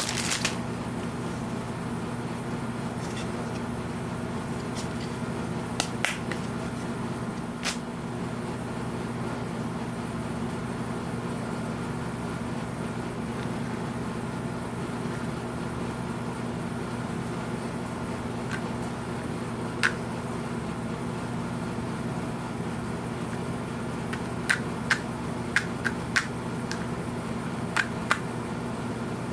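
Scattered sharp clicks and taps of the figure and its packaging being handled: a few early, one in the middle and a quick cluster near the end. Under them runs a steady low hum.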